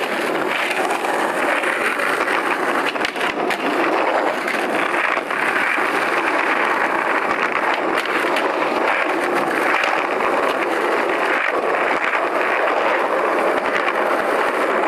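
Skateboard wheels rolling over concrete pavement, a steady rumble with a few scattered clacks of the board.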